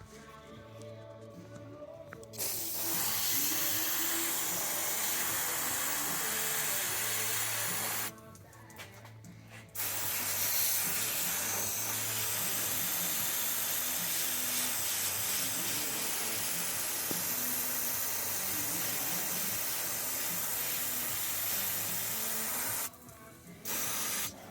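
Aerosol can of CRC Freeze Off penetrant spraying onto a rusted nut with a steady hiss: a spray of about six seconds, a short pause, a longer spray of about thirteen seconds, then a brief burst near the end.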